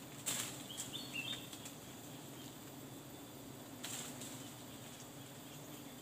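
Leaves and branches rustle and crackle twice in the tree canopy, about a third of a second in and again near 4 s, as a wild bee nest is harvested. Under it runs a faint steady hum of bees, and a few short high chirps come at about a second in.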